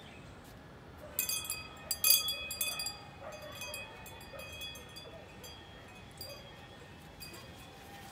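Metallic clinking with a bell-like ring: a cluster of strikes starting about a second in, loudest around two seconds, then thinning out to a few light clinks.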